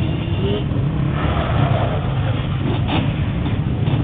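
ATV and motorcycle engines running close by, with a louder, rougher stretch from about one to two seconds in.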